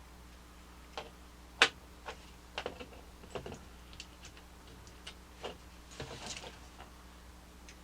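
Small plastic model-kit parts being handled and pressed together, giving irregular sharp clicks and taps, with one louder snap about a second and a half in.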